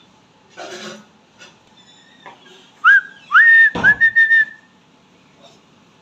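Indian ringneck parakeet whistling: a short rising note about three seconds in, then a longer whistle that rises and holds on one pitch, broken into several short pieces. A knock sounds partway through the whistle, and a brief noisy sound comes just under a second in.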